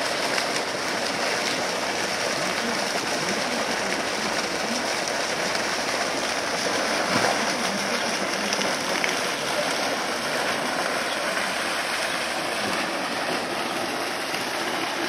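Water from a curved stainless-steel pool fountain spout pouring and splashing steadily into a swimming pool, an even rushing noise throughout.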